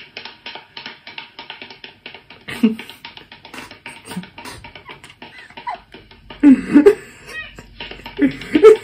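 Rapid, rhythmic patting of a hand on a cat's rump, several pats a second, with loud bursts of a man laughing a few times.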